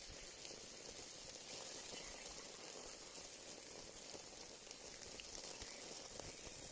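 Faint, steady sizzling of chicken kebab roasting over a wood fire, with scattered small crackles.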